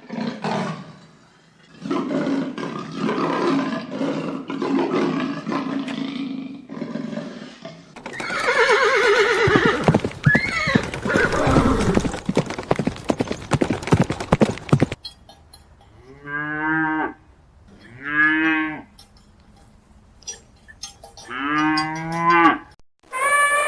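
A run of farm animal calls, one clip after another. Near the end come three separate pitched calls, each about a second long.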